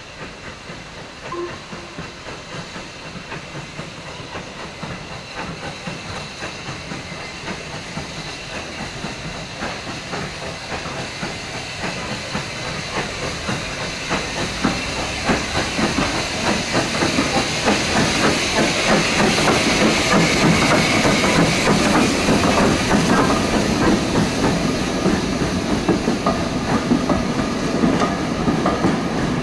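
Steam train growing steadily louder as it draws near, with hissing steam and a fast run of clattering beats. It is loudest about two-thirds of the way through.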